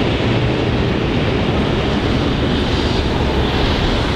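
Freight train hauled by two VL-class diesel locomotives crossing a viaduct, a steady low rumble mixed with city road traffic.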